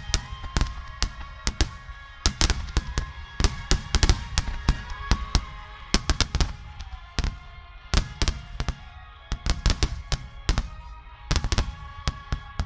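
Aerial fireworks bursting in quick succession, dozens of sharp bangs and crackles, over music with sustained tones.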